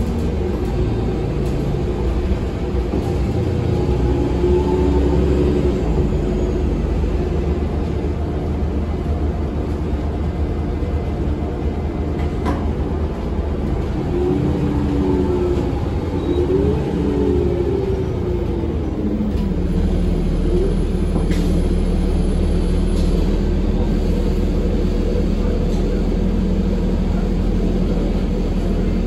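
Eldorado National Axess transit bus running, heard from inside the cabin: a steady engine and road rumble. Its pitch rises and falls a few times, then settles to a lower steady drone about two-thirds of the way through.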